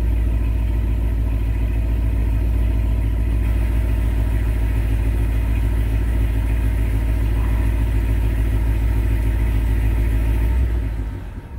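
Supercharged LSA-blown LS3 V8 of a 2015 Chevy SS running on E85, idling steadily at a raised cold-start idle of about 1,100–1,200 rpm, heard from inside the cabin. The sound drops sharply near the end.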